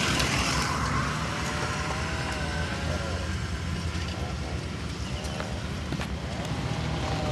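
Steady car engine and road noise from a car driving along, a low rumble without changes.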